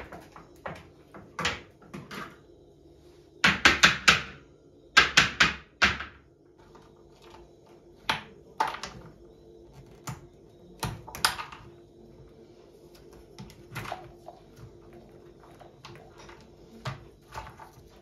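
Ice cubes being popped out of plastic ice cube trays: sharp cracks and clacks of ice and plastic. Two quick dense bursts come a few seconds in, then scattered single clicks, over a faint steady hum.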